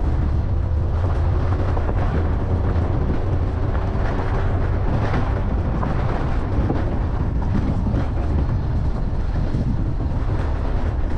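A vehicle's steady low rumble with many small rattles and knocks scattered through it.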